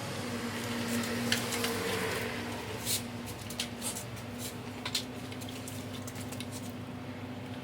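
Scattered light clicks and taps, as of hands handling small parts, over a steady low hum; the sharpest clicks come about a second in and about three seconds in.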